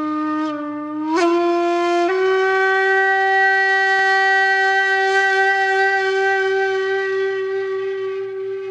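Intro music on a single wind instrument: a low note that steps up in pitch twice in the first couple of seconds, then one long held note that slowly fades near the end.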